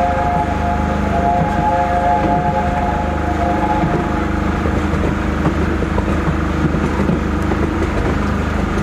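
The chime whistle of LNER A4 locomotive Sir Nigel Gresley sounding a steady chord of three notes, stopping about three and a half seconds in, over the steady rumble of the train running, heard from aboard the carriages.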